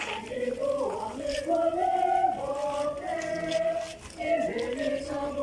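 A crowd of voices singing a hymn together, with long held notes that step from one pitch to the next and a short dip in loudness about four seconds in.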